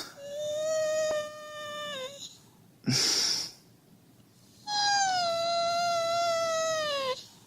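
Siberian husky giving two long, drawn-out whines, each holding its pitch and then dropping off at the end, the second pitched a little higher, with a sharp noisy intake of breath between them. The dog is whining to wake its owner.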